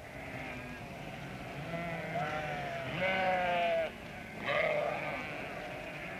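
A flock bleating: several overlapping, wavering calls, the loudest about three seconds in.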